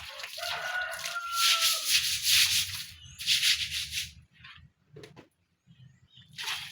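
A stiff-bristled brush scrubbing a wet surface in long rubbing strokes, with a brief squeak in the first two seconds, then a couple of shorter strokes near the end.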